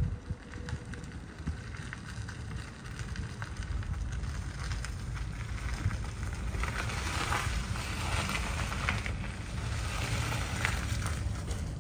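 BMW i3s tyres crunching and crackling over a loose gravel surface as the car rolls slowly past close by, the crunching loudest from about seven to eleven seconds in. A low wind rumble runs underneath.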